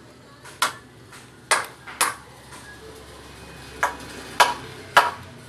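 Six sharp metallic taps at uneven intervals, each with a short ring, like a tool striking metal.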